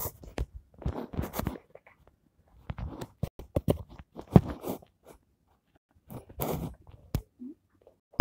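Irregular crinkling, rustling and light knocks of a handmade paper-and-plastic lamp puppet being moved by hand, in short clusters with silent gaps between them.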